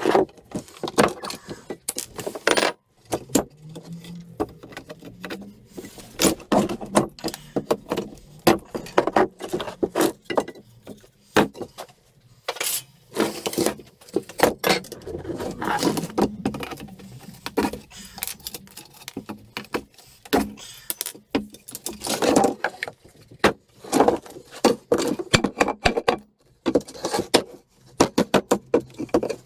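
Claw hammer blows and a pry bar levering pallet slats loose: many irregular sharp knocks of metal on wood and metallic clinks.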